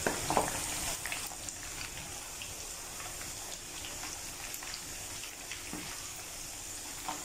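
Cornflour-marinated chicken pieces frying in hot oil in a pan: a steady crackling sizzle, with a few faint pops as more pieces go into the oil.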